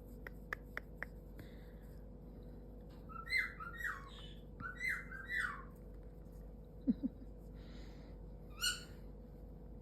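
Pet parrot making short chirping calls in a quick run of about six, then one more call a few seconds later, preceded by a few sharp clicks at the start.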